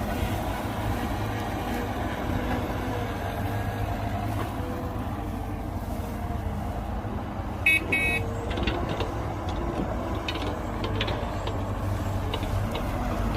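Heavy diesel earthmoving machinery running steadily with a low drone. About eight seconds in comes a brief horn toot, followed by scattered short clanks.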